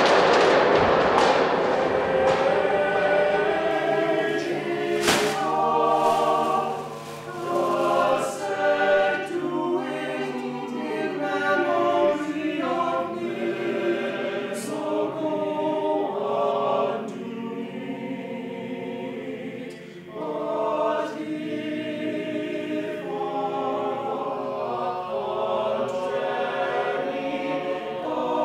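Aluminium drink cans clattering and scattering across a wooden floor, dying away over about two seconds; then an all-male chorus singing in harmony, with a sharp knock about five seconds in.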